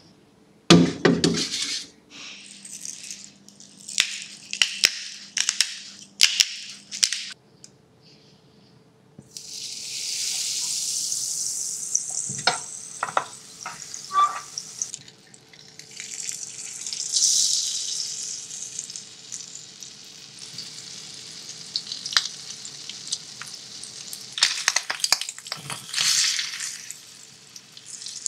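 Running and spraying water in hissing spells, with irregular knocks, clatters and scrapes of handling, over a faint steady machine hum.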